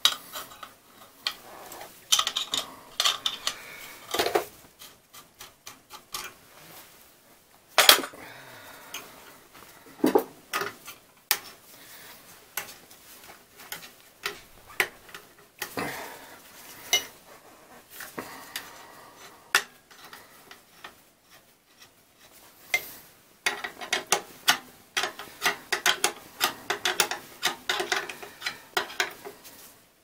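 Irregular metallic clicks, clinks and rattles of tools and metal fittings being handled at an oil burner's fuel pump, with no burner running; one sharp clink about eight seconds in and a dense run of clatter over the last seven seconds.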